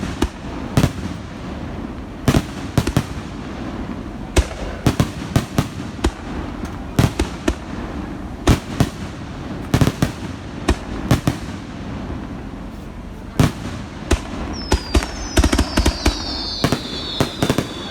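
Fireworks going off: sharp bangs and pops at irregular intervals, often in quick clusters. In the last few seconds several whistling fireworks sound together, their whistles falling in pitch, among a rapid run of pops.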